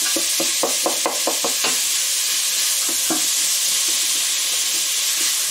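Sliced onions and leek sizzling in olive oil in a stainless steel pot, stirred with a wooden spatula. A quick run of scrapes and knocks against the pot in the first couple of seconds and another around the middle, over a steady sizzle.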